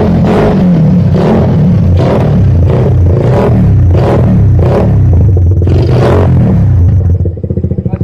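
Suzuki Raider R150's single-cylinder four-stroke engine revved in a quick series of throttle blips through a King Drag aftermarket power-pipe exhaust, each blip rising and falling in pitch, then settling to a pulsing idle about seven seconds in.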